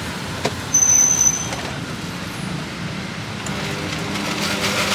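Street traffic noise: vehicles running past in a steady wash of road noise, with a single click just under half a second in and a brief high-pitched tone for most of a second about a second in.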